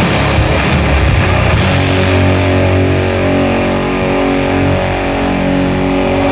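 Slow doom metal: heavily distorted guitars and bass. About two seconds in the cymbal wash stops and held distorted chords ring on over a low bass drone.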